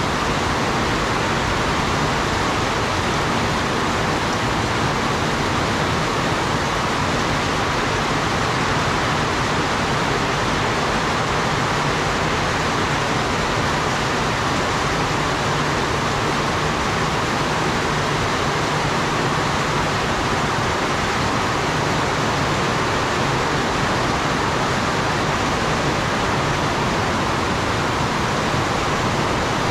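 Heavy rain falling in a steady downpour, with runoff pouring off a roof edge in a thick stream. The sound stays even throughout, with no thunder claps.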